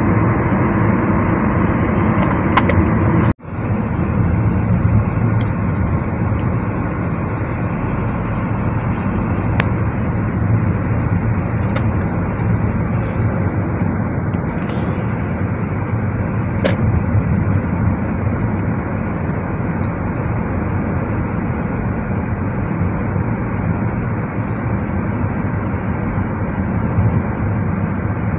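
Steady road and engine noise heard inside the cabin of a car cruising along an expressway, with a sudden, very short break in the sound about three seconds in.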